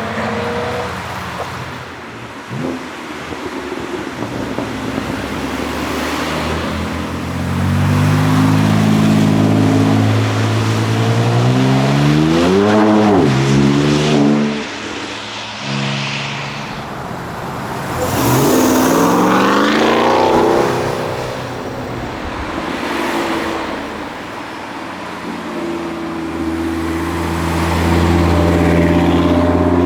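Sports car engines revving and accelerating. The pitch climbs and falls several times: a rev peaks about twelve seconds in, a hard rising pull comes near the middle, and another rev builds near the end.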